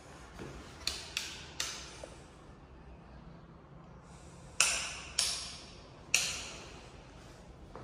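Hard footsteps clacking on a tiled floor, echoing in an empty room. Three sharp clacks come about a second in, and three louder ones start about four and a half seconds in.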